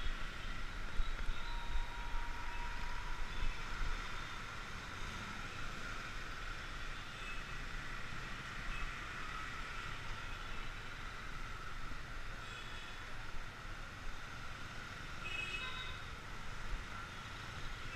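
Dense city traffic of cars, auto-rickshaws and motorbikes moving slowly, a steady engine and road noise, with short horn toots at several points, most of them near the end.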